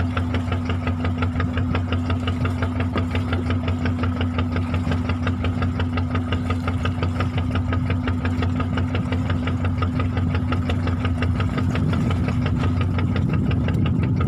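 Fishing boat's engine running at slow trolling speed: a steady low hum with a fast, even knocking beat, getting a little rougher and louder near the end.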